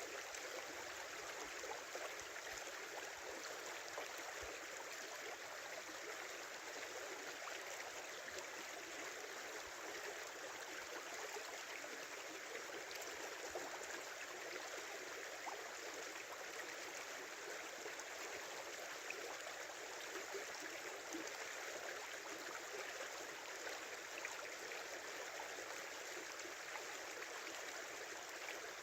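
A small river babbling steadily over its bed: a constant, even rush of flowing water.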